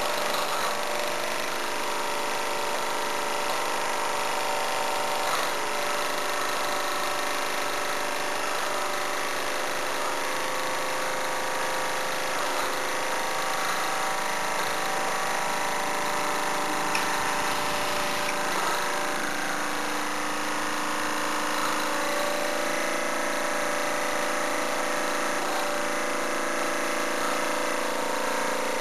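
Mamod SE3 superheated twin-cylinder toy steam engine running steadily on live steam.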